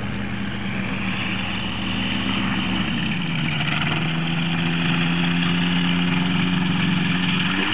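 Microlight trike engine and pusher propeller running at low throttle as the trike rolls out over grass after landing, growing louder as it approaches. The engine note dips in pitch about three seconds in, then holds steady.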